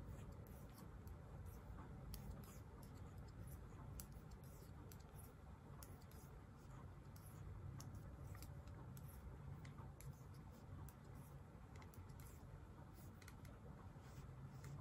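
Knitting needles clicking faintly and irregularly, several light clicks a second, over a low steady room hum.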